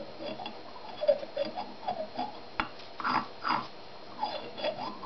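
Fingers rubbing and squeaking around the piston bore of a Mazda 323 front brake caliper, in short strokes about twice a second, with one sharp click about halfway through.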